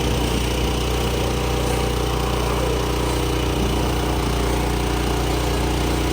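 Tractor engine running at a steady speed, a constant drone that holds the same pitch throughout.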